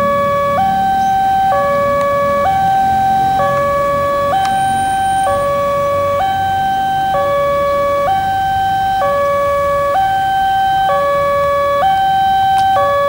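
Electronic two-tone warning siren of an Indonesian railway level crossing, switching steadily between a lower and a higher tone about once a second. It is the alarm that a train is approaching.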